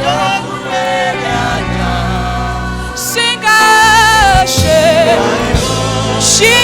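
Gospel worship singing: a voice holds long notes with vibrato over instrumental accompaniment.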